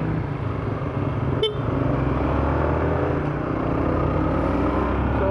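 Motorcycle engine pulling away and accelerating as it is ridden off, then running steadily, with a short sharp sound about one and a half seconds in.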